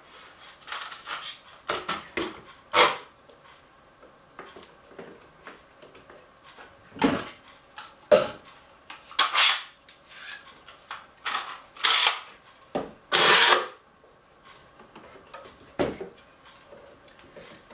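Woodworking parallel clamps (Bessey K Body Jr) being slid into place and tightened on a glued-up wooden panel: a dozen or so irregular short scrapes and knocks of clamp against wood and bar, the longest a half-second scrape a bit past two-thirds through.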